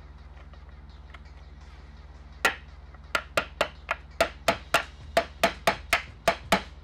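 A rapid string of about fourteen sharp, ringing metal-on-metal blows, roughly four a second, starting a couple of seconds in. They come from a tool being struck against a pry bar wedged in the seam of a Toyota C52 transaxle's cast-aluminium case, working the RTV-sealed case halves apart.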